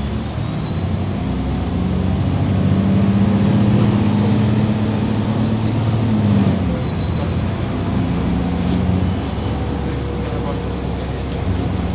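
MAZ 203.065 city bus running under way, heard from inside the passenger cabin: the diesel engine and a high drivetrain whine rise in pitch as the bus accelerates, both drop about six seconds in as the gearbox shifts up, then run on steadily.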